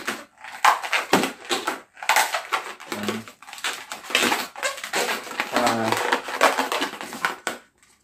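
Latex twisting balloon squeaking and rubbing against itself and the hands as it is bent and twisted into bubbles: a quick, irregular run of short squeaks and rubs.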